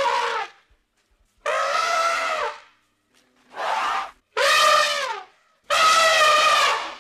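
Elephant trumpeting: a series of loud, brassy calls about a second long each with short silent gaps, one trailing off at the start and four more following, some dropping in pitch at their ends.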